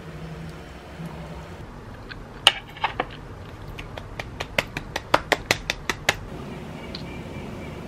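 Hands clapping: three claps about two and a half seconds in, then a quick run of about a dozen claps at roughly six a second that stops about six seconds in.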